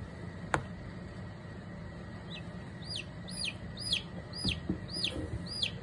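A newly hatched domestic chick peeping repeatedly in distress while held in the jaws of a South American rattlesnake: short, high calls that fall in pitch, about two a second, starting about two seconds in. A single sharp click comes about half a second in, over a steady low hum.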